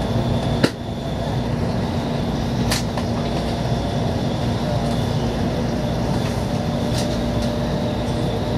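Steady running noise inside a moving Shinkansen car: an even low rumble with a faint steady hum. A sharp click comes just under a second in, and fainter ticks come about three and seven seconds in.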